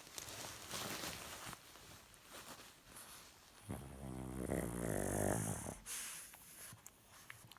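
A sleeping pug snoring, the noisy snoring typical of the breed's short, flat-faced airway. Breathy snuffles come first, then about four seconds in one loud, rattling snore lasting about two seconds, followed by a short wheezy breath out.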